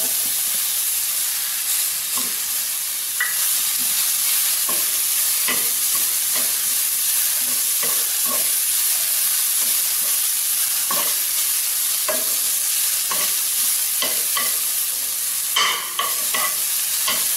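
Shallots, roasted gram, cashews and green chillies sizzling in oil in a frying pan with a steady hiss, stirred through with grated coconut. Frequent short scraping ticks come from the stirring against the pan.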